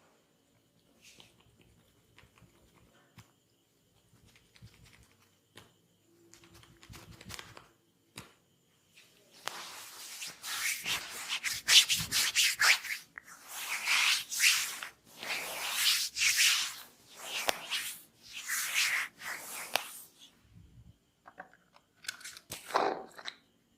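Hands rubbing over skin in long, repeated massage strokes: a run of about eight swishes, each lasting about a second, starting about ten seconds in, with a few shorter brushes near the end.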